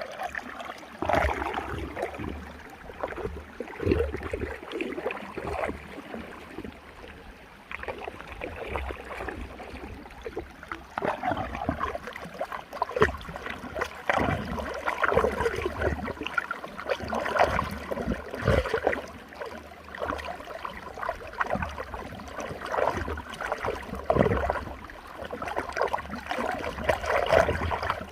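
Running water swirling in a whirlpool, gurgling and splashing in uneven surges, with a steady low rumble underneath.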